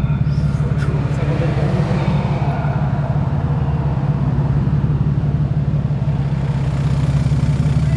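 Porsche 996 Carrera 4's flat-six engine idling steadily through its modified factory exhaust with the catalytic converters removed.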